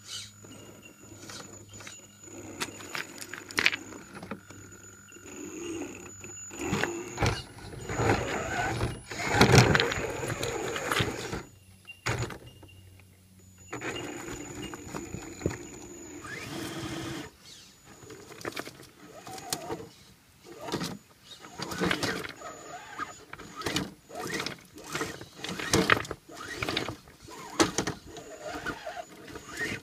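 Novak Ballistic 18.5-turn brushless motor of an Axial SCX10 RC rock crawler whining in short runs as it climbs rocks, with tyres and chassis scraping and knocking on stone. The loudest stretch is about 8 to 11 seconds in.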